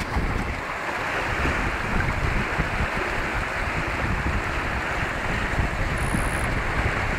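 Wind buffeting the microphone and lake water rushing along the hull of a small sailboat under sail, a steady noisy rush with gusty low rumble.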